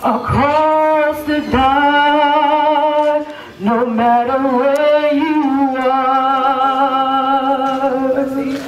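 A singer holding long, wavering notes with vibrato, with a short break about three and a half seconds in.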